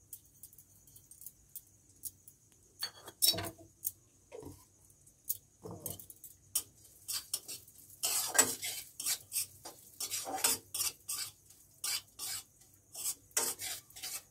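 Metal spatula scraping and clinking against a metal kadai while stirring crushed peanuts in hot ghee. A few scattered knocks come first, then quick, continuous scraping strokes from about halfway through.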